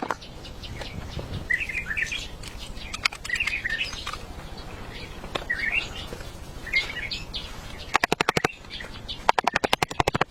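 Small birds chirping in short repeated calls, with two brief bursts of rapid, evenly spaced tapping near the end.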